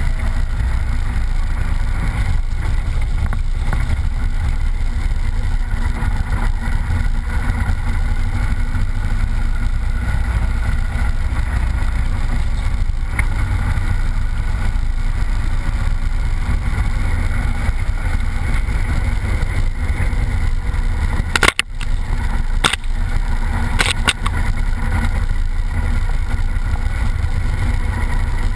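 Off-road vehicle running along a wet dirt track, heard from a camera mounted on its body: a steady low rumble of engine and wind. Three sharp knocks come about three-quarters of the way through.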